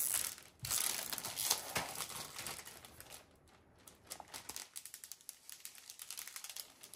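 Plastic crinkling and rustling as a diamond painting canvas in its clear plastic film is handled and unrolled, louder in the first couple of seconds, then quieter light rustles and ticks.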